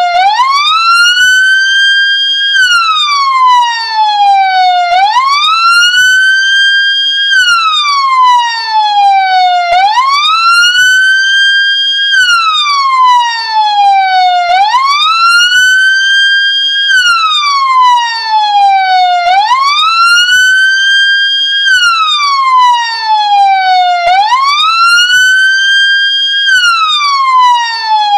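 Ambulance siren sounding a wail. The pitch rises quickly, holds briefly at the top, then falls slowly, repeating about every five seconds.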